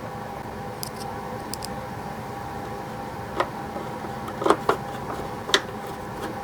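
Clicks and taps of hard plastic toy parts being handled and screwed together, a few sharp ones in the second half, over a steady electrical hum.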